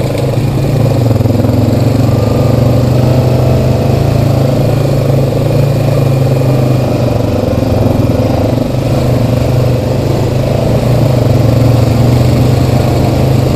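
Honda Rancher 420 ATV's single-cylinder four-stroke engine running steadily under way on a dirt trail, heard close up from the machine itself.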